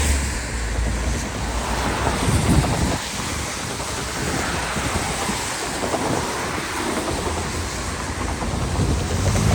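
Road traffic noise from passing vehicles, with wind rumbling on the microphone.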